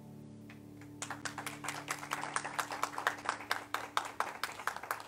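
The last piano chord ringing out, then a small audience clapping from about a second in, with individual claps distinct.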